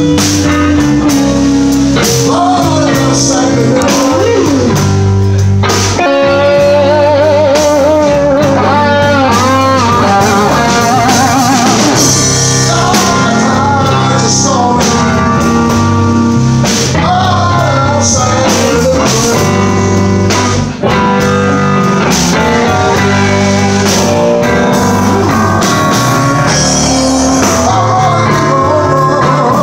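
Live blues band playing: electric guitar over a low bass line and drums, with a lead line of bent, wavering notes a few seconds in.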